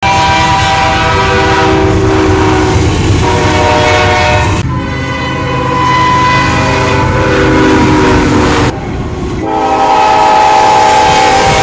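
Locomotive's multi-chime air horn blowing loud and nearly continuously, its chord changing several times and breaking off abruptly twice, over the low rumble of a passing freight train.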